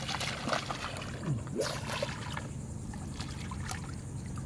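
Seawater splashing and sloshing irregularly around people standing in the water, over a steady low hum.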